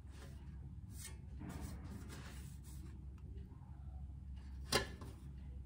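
A galvanized steel strip being pressed over by hand in a bench vise: faint scraping of the metal against the vise jaws, then one sharp click about three-quarters of the way through.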